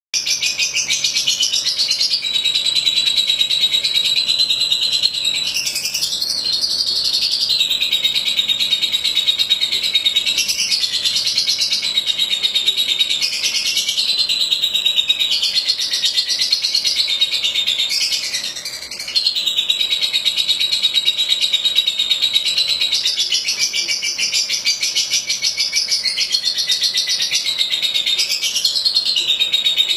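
Lovebird singing: a long, rapid, high-pitched chattering song that runs almost without pause, with brief breaks every few seconds and a short lull just past the middle.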